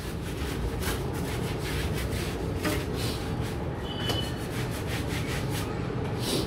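A stiff-bristled hand brush scrubbing a soapy mountain bike's frame and tyres in quick, repeated back-and-forth strokes.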